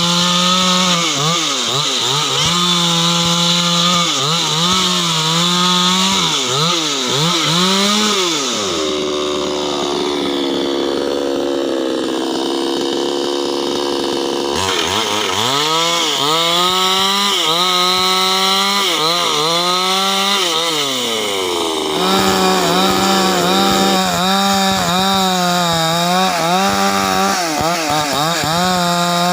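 Ogawa chainsaw's two-stroke engine running at high revs while ripping a hardwood log lengthwise, its pitch dipping and recovering as the chain bites. About nine seconds in it drops to a lower, steadier speed for several seconds, then revs up and down before holding high again.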